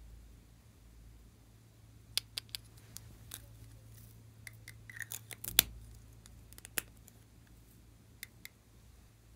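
A run of sharp plastic clicks and snaps as pen caps are pulled off and the pens are handled. The clicks cluster from about two to seven seconds in, with the loudest snap near the middle and two more a little before the end.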